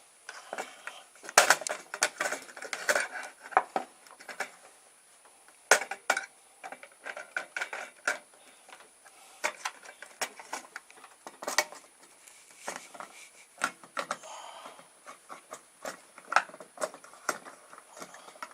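Hands working plastic parts free: irregular clicks, knocks and light rattling as the clips holding a refrigerator control board are pushed down and the board is worked out of its housing.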